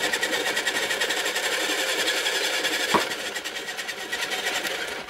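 Small electric pottery wheel running at speed, spinning a paint-covered vinyl record, with a fast even buzz. A single sharp knock about three seconds in.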